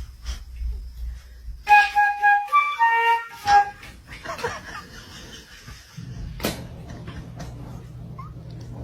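A quick run of about eight short notes on a flute-like wind instrument, lasting about two seconds. A steady low hum starts near the end.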